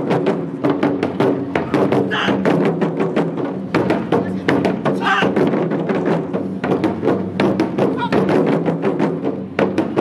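Taiko ensemble playing: many barrel drums struck with sticks in a fast, steady rhythm, with a few shouts over the drumming.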